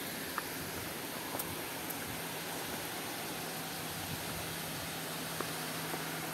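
Steady, even outdoor hiss with no clear source, joined about two seconds in by a low steady hum, and a few faint clicks.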